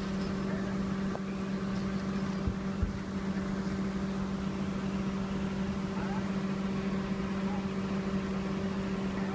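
A steady mechanical hum, one constant low tone with an overtone above it over a noisy background, with a brief low bump near three seconds in.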